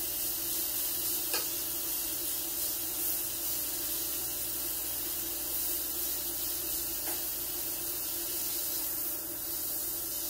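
Marinated Korean-style beef short rib searing on a hot grill pan, a steady sizzle. Two faint clicks come from the metal tongs pressing and shifting the meat, about a second in and again near seven seconds.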